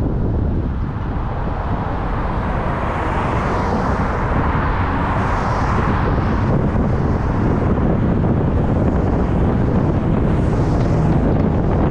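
Wind rumbling on the microphone of a camera moving along a road, with traffic noise. A passing car swells and fades in the middle.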